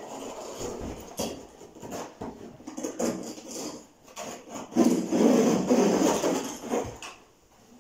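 A carpet edge being lifted and worked away from the skirting board, its backing rubbing and scraping with a rough, rasping noise that is loudest for about two seconds, starting around five seconds in.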